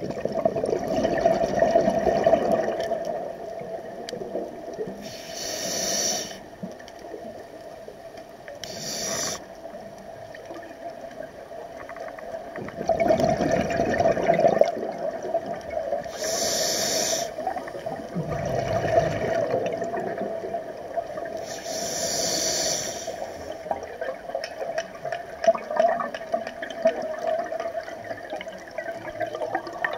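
Scuba diver breathing through a regulator underwater: short hissing inhalations alternate with longer, bubbling exhalations, repeating every few seconds.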